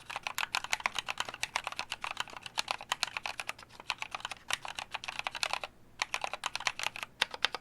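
Fast typing on a mechanical keyboard with Kailh Novelkeys Cream linear switches and DCP-profile keycaps: quick key clacks with a short pause about six seconds in. The switch springs are lubed, so there is no spring ping.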